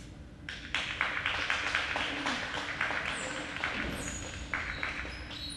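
Small audience applauding, a run of hand claps that starts about half a second in and thins out near the end.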